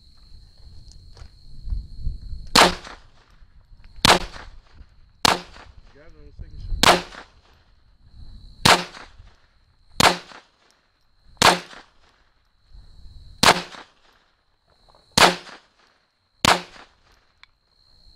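Smith & Wesson M&P 22 Compact .22 LR pistol fired in slow, aimed single shots: about ten sharp cracks roughly a second and a half apart.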